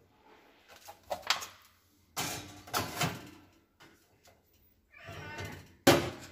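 A foil baking pan and a metal tray scraping and rattling as they are pushed onto the rack of a toaster oven, then the oven's glass door shutting with a sharp clack near the end.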